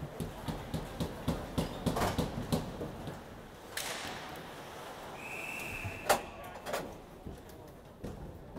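Ice hockey play: a quick run of sharp clacks of sticks and puck on the ice, then a brief steady high tone and a single loud crack a little past the middle, with a smaller crack after it.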